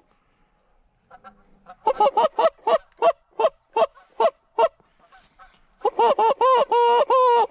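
Goose call blown by a hunter, imitating Canada geese to bring in a lone bird. It gives a run of short honks, about three a second, then after a pause a loud, fast string of clucks and drawn-out honks near the end.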